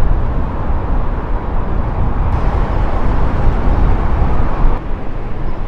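Loud outdoor street ambience: a dense, rumbling noise weighted toward the low end, unsteady in loudness, with no distinct events.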